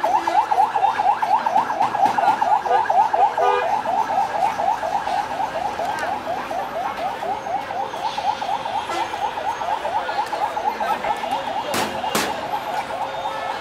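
Electronic siren on a yelp setting: fast rising whoops, about five a second, going on without a break. Two sharp clicks come about twelve seconds in.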